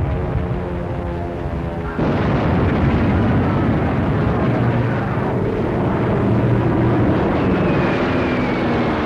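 Orchestral film score mixed with battle sound effects. A held chord for about two seconds is cut off by a sudden louder rumble of explosions and aircraft noise, and near the end a high whistle slides slowly down in pitch.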